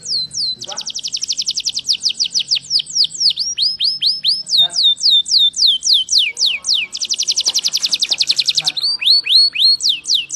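Domestic canary singing a continuous song of high, falling notes. It alternates between very fast rolling trills and slower runs of repeated notes.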